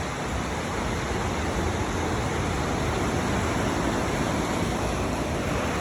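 Ocean surf at high tide, a steady rushing wash of waves with no break.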